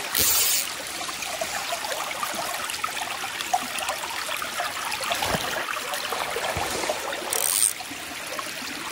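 Small mountain creek trickling and burbling over rocks in a shallow riffle, steady throughout. Two short bursts of hiss stand out above it, one just after the start and one near the end.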